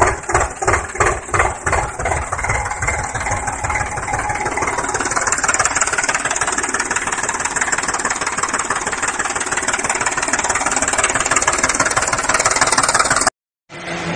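A tractor-style engine running: it chugs in even pulses, about three a second, at first, then settles into a steady, busier running sound. The sound cuts off suddenly near the end, and a lower steady hum starts up just after.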